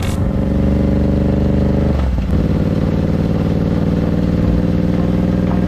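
Royal Enfield Interceptor 650's parallel-twin engine running steadily under way, heard close up, with a brief break in the engine note about two seconds in before it settles again.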